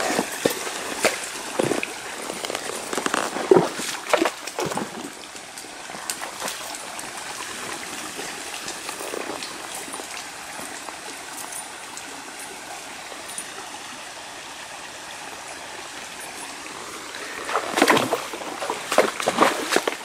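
Horse walking through a shallow rocky creek: hooves splashing and knocking on stone, over the steady trickle of running stream water. The hoof splashes are spaced in the first few seconds, fade to just the water in the middle, and come back louder and closer together near the end.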